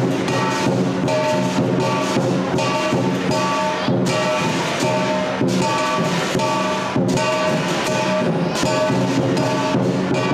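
Lion dance music: percussion strikes under a melody of held pitched notes, played at a steady loud level.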